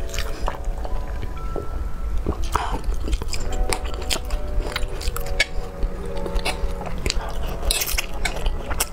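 Close-miked eating sounds: sharp bites and wet chewing clicks, including a bite into a green grape about halfway through and noodles being sucked in near the end.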